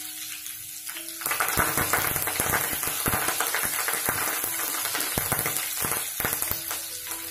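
Fresh curry leaves hitting hot tempering oil with mustard seeds, cumin and green chillies in a kadhai: a sudden loud sizzle with sharp crackles and spits about a second in, stirred with a spatula, dying down near the end.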